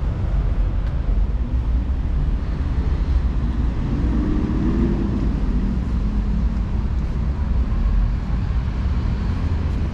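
Urban street ambience: a steady low rumble of traffic, with a passing vehicle's engine hum swelling and fading about four to five seconds in.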